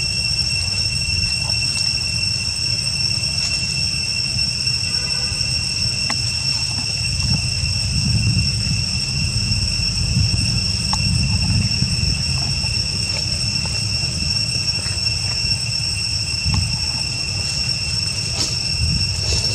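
Cicadas droning in one steady, unbroken high-pitched tone, with a low rumble underneath.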